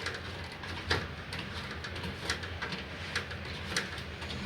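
Scattered light clicks of a washing machine's plastic drain-pump filter cap being unscrewed by hand, over a low steady hum. The filter is clogged, which stopped the machine from draining.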